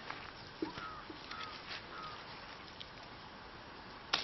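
Hand-picking lemons: leaves and twigs rustle with small clicks, and near the end a sharp snap as a lemon's stem breaks from the branch. A few short, falling bird chirps sound in the first half.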